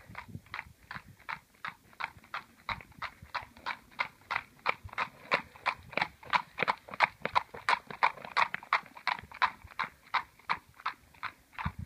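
A horse's hooves clip-clopping on a paved lane at a trot, an even beat of about four hoofbeats a second, growing louder to the middle as the horse passes close and fading as it moves away.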